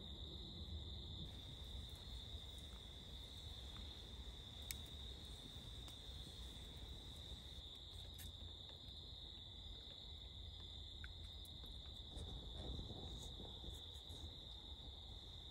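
Crickets chirring in one steady, high-pitched, unbroken trill, faint, over a low rumble, with a few faint ticks.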